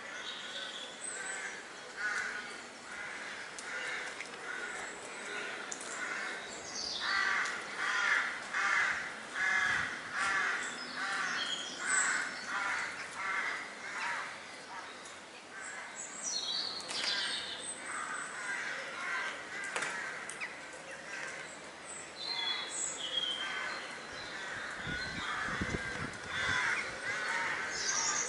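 Birds calling, with a run of rapidly repeated calls, about two a second, in the first half and higher chirps throughout.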